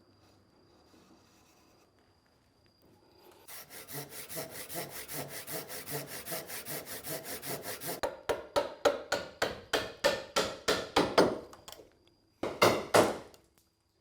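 Hand saw cutting through wood: quick, light strokes start a few seconds in, then give way to longer, louder strokes about three a second, with a brief pause before a last short run.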